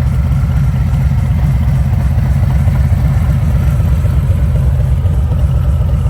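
Harley-Davidson Street Bob 114's Milwaukee-Eight 114 V-twin idling steadily through a Rinehart slip-on exhaust, with a loud, deep, pulsing exhaust note.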